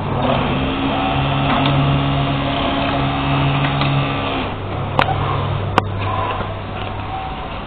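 Kansai WX 8804 D industrial sewing machine running and stitching, a steady machine drone that eases off about four and a half seconds in. Two sharp clicks follow.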